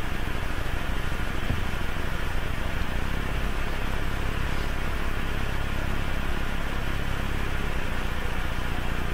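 Steady hum and hiss of a machine running in the background, even throughout with no breaks or changes.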